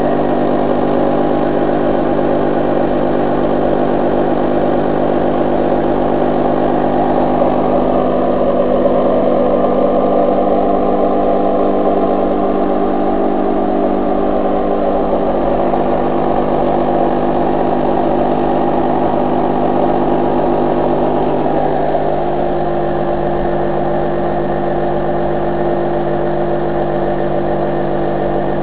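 Model single-acting oscillating steam engine running unloaded at about 3,000 rpm, a steady fast buzz with no change in speed.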